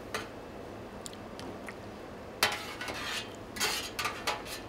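Metal spoon clinking and scraping against a small cast-iron skillet while mussel meats are pushed into place: a few light ticks, a sharp clink about two and a half seconds in, then a cluster of clinks near the end.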